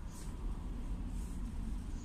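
Steady low car engine and road rumble heard from inside the cabin, creeping in slow traffic on a wet road, with two brief faint hisses about a second apart.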